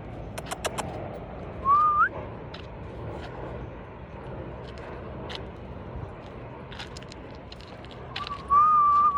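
A person whistling at a dog to make it tilt its head: a short rising whistle about two seconds in, then a longer wavering whistle near the end that climbs at the finish. A few sharp clicks come in the first second.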